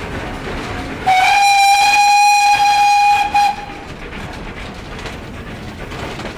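Steam locomotive whistle blowing one long, single-pitched blast of about two seconds, starting about a second in and ending with a brief short toot, over the steady running noise of the moving train.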